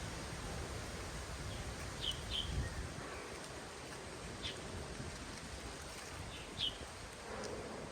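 Birds giving a few short, sharp chirps now and then over a steady outdoor background hiss.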